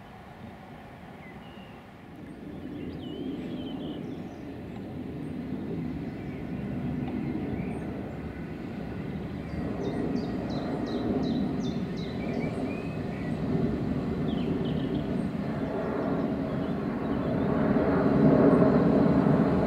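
Rumble of the Merchant Navy class Pacific steam locomotive 35028 Clan Line and its Pullman coaches approaching slowly, growing steadily louder from a couple of seconds in. Birds chirp faintly above it.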